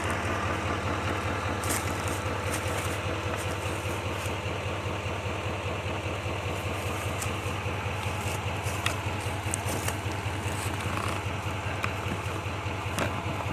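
A vehicle engine idling steadily, a constant low hum, with a few faint clicks over it.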